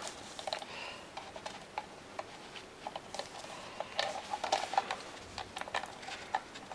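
Faint, scattered small clicks and taps of hard plastic as a small screwdriver and fingers work a clipped-on, glued mouth piece off a 1992 Playskool Teddy Ruxpin's plastic head shell; the piece is stubborn to free.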